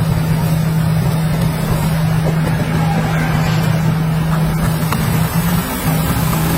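Heavy construction machine's diesel engine running steadily, with a constant low hum over rumble.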